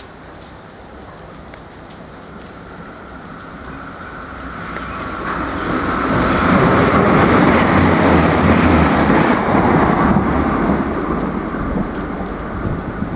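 Irish Rail 22000 Class diesel multiple unit passing through a station: the rumble of its diesel engines and wheels on the rails builds over several seconds, stays loud for about four seconds, then eases off slightly as it goes by.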